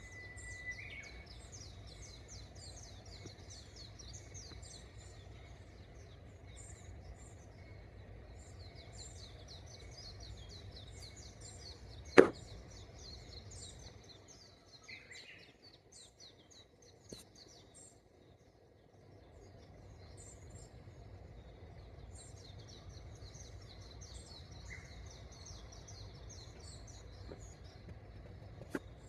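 Small birds chirping and twittering in quick high calls over a low steady background rumble. A single sharp click about twelve seconds in, and a smaller one near the end.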